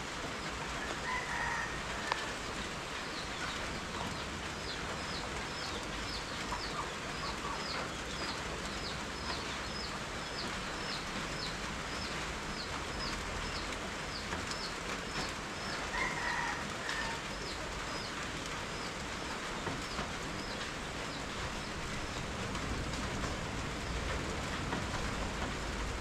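Steady rain falling, with a bird giving short, high, falling peeps about twice a second through much of it and two brief calls, one near the start and one about two-thirds of the way in.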